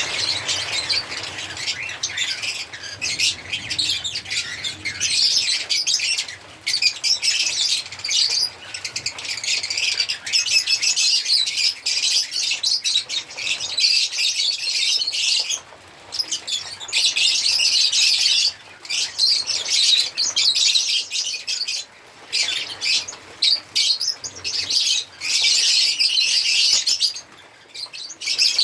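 A group of lovebirds chirping in a rapid, high-pitched stream, broken by short pauses every few seconds.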